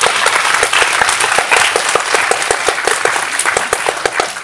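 Audience applauding: dense clapping from many hands, easing off slightly near the end.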